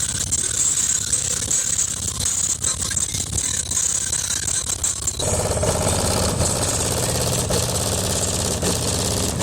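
Car subwoofers in a tuned enclosure playing loud, deep bass, with the car's panels rattling. About five seconds in, more of the track's mid-range comes in over the bass.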